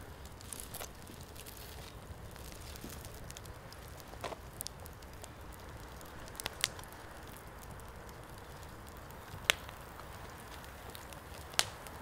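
Wood fire crackling in a Snow Peak Fire Stand LL: a steady low background with scattered sharp pops, about five, the loudest a little past three-quarters through.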